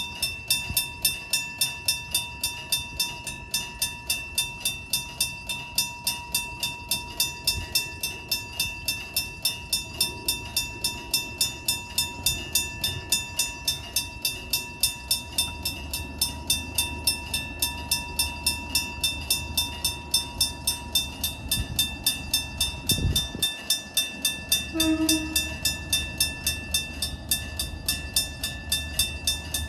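Japanese level-crossing warning bell clanging steadily at about three strikes a second, with a train rumbling past from about halfway through. A short horn blast sounds near the end.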